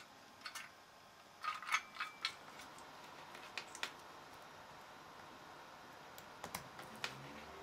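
Light plastic clicks and ticks as a CPU tower cooler and its fan power connector are handled and plugged together. Near the end the cooler's fan starts up, adding a faint low hum.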